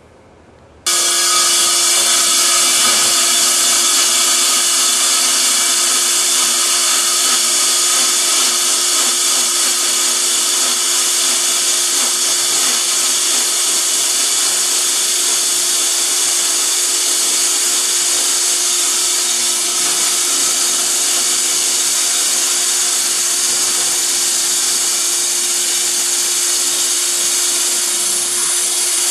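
Electric concrete core drill starts abruptly about a second in and runs steadily at a constant pitch, boring through a concrete floor.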